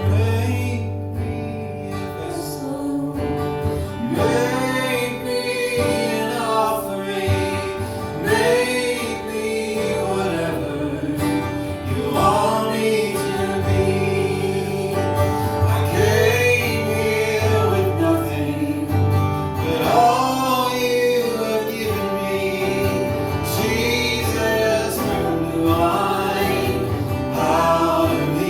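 Worship music: guitar playing, joined about four seconds in by a voice singing long, drawn-out phrases.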